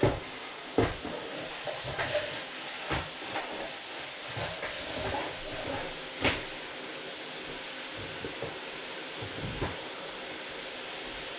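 Household items being handled and knocked during cleaning: several sharp knocks and clatters, the loudest about a second in and about six seconds in, over a steady hiss.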